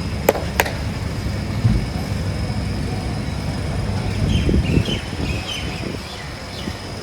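Two sharp cracks a third of a second apart from a barber's head and neck massage, heard over a steady low background rumble.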